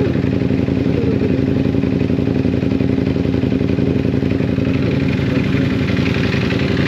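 Motorcycle engine running at a steady speed, its pitch holding level with no revving.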